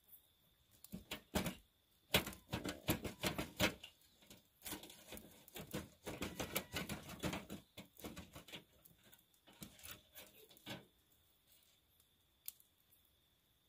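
Spatula scraping and clicking against a smoker's wire grill grate as smoked fish pieces are lifted off, in irregular bursts of clicks with short pauses between.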